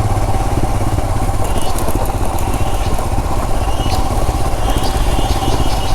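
Royal Enfield Himalayan BS6's single-cylinder engine running steadily at low speed on a rough track, with scattered light clicks and rattles over it.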